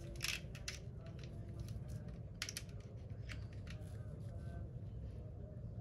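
Small brass carburettor jets clicking and rattling against each other and the plastic compartment box as fingers pick through them. There are clusters of light clicks in the first three and a half seconds, then only a few.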